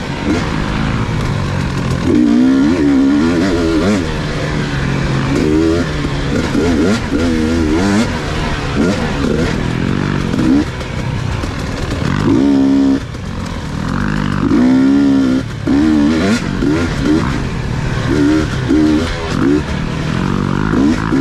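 Motorcycle engine revving up and down over and over, its pitch climbing and falling as it runs hard through the throttle, over a steady rushing noise.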